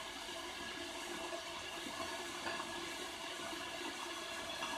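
Electric kettle heating water with its lid open: a steady hiss from the element while the water is still far from the boil.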